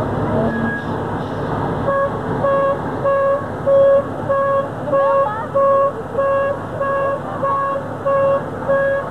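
Fire tanker truck running on the road. From about two seconds in, a short, even beep repeats roughly every 0.6 seconds, like a vehicle's warning beeper.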